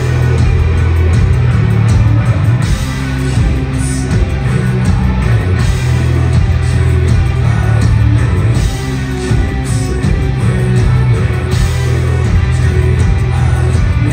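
Heavy rock band playing live and loud through a concert PA: distorted guitars, heavy bass and drums with steady cymbal hits.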